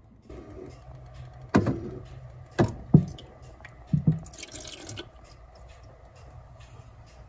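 A few sharp clunks as the Keurig Mini's plastic water-reservoir lid is lifted open, then water poured from a glass measuring cup into the reservoir, splashing from about four seconds in.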